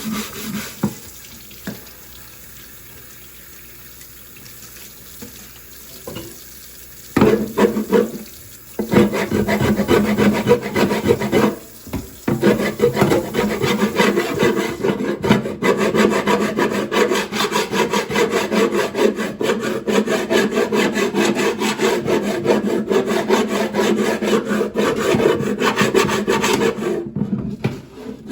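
A wooden chopping board being scrubbed by hand in rapid back-and-forth strokes. After a fairly quiet start, the scrubbing begins about seven seconds in, stops briefly near twelve seconds, then runs on fast and steady.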